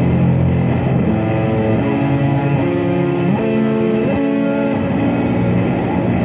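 Electric guitar played through heavy effects in a dark ambient improvisation: layered, sustained notes that step to new pitches every half second to a second over a steady low drone.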